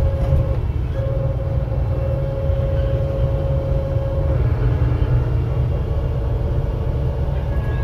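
VDL DB250 double-decker bus on the move, heard from inside the passenger saloon: a low drone with a steady whine held on one pitch over it. About four seconds in the whine drops slightly in pitch and grows fainter.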